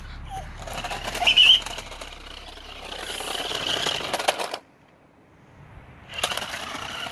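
Thunder Tumbler remote-control stunt car driving on concrete: its small electric motors run while its plastic wheels rattle and clatter over the pavement. A brief, loud, high squeal comes about a second and a half in. The sound cuts out for about a second and a half past the middle, then starts again.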